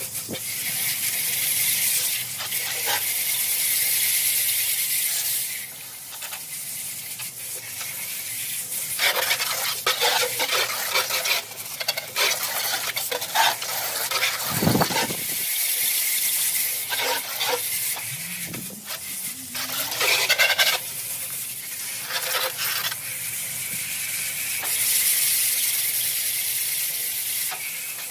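Garden hose jet hissing as it sprays water inside an air-conditioner condensing unit, rinsing the compressor and coil. Through the middle the stream breaks up into irregular splashing and spattering on the sheet-metal pan, with a short low bump about halfway through.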